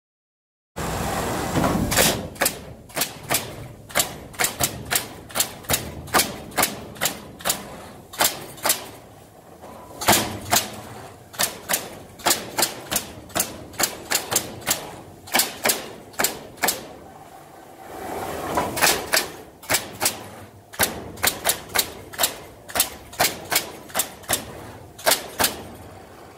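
Pneumatic nail guns on a Palletmax 4500 automatic pallet-nailing machine firing nails into wooden pallet boards in a rapid series of sharp shots, about two to three a second, over one nailing cycle. The series breaks briefly twice, about 9 s and 17 s in, when only a steadier machine noise is heard.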